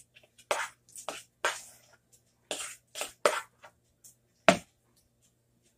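A utensil scraping and knocking inside a mixing bowl to get out the last of a thick chicken and cream cheese filling. About seven short scrapes and knocks, the sharpest about four and a half seconds in.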